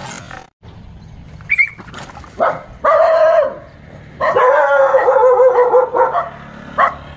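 A frightened dog yelping: a short high yip, then a drawn-out cry, then a longer cry held for nearly two seconds, sinking slightly in pitch.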